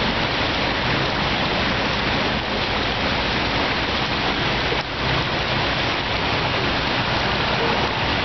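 Floodwater gushing up out of an overflowing storm-drain manhole and churning across the flooded road: a steady, loud rushing and splashing of water.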